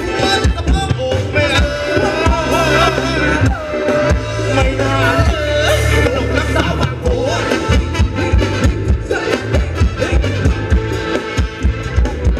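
Thai ramwong dance music from a live band: a singer over drums and a steady bass beat.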